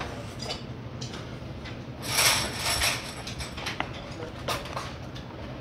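Close-miked eating: chewing a mouthful of rice, with a spoon clicking and scraping in a metal rice-cooker pot. A louder, noisy stretch of scraping or chewing comes about two seconds in.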